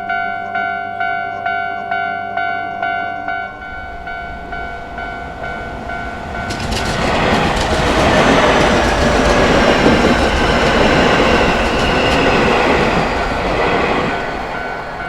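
Japanese level-crossing warning bell ringing steadily, about one and a half strikes a second, softening a few seconds in. A Keio Inokashira Line electric train then approaches and runs over the crossing, building to a loud rumble in the middle and fading near the end, with the bell still ringing under it.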